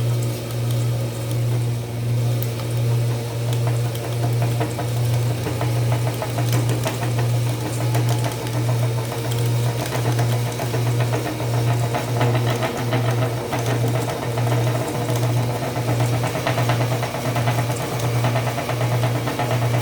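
Small AC electric motor running with a strong, steady low hum that pulses evenly about twice a second, over a faint rattling whir.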